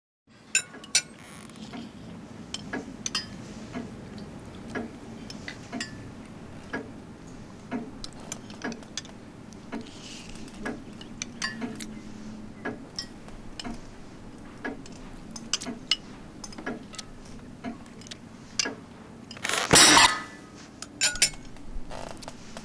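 Spoons clinking and scraping against soup plates as a family eats alphabet soup, in scattered single clicks over a low steady hum. A short, loud, noisy burst comes near the end.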